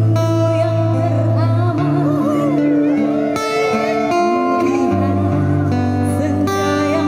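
Live busker band playing, with acoustic guitar and a sustained bass line under a woman singing a melody with wide vibrato and runs.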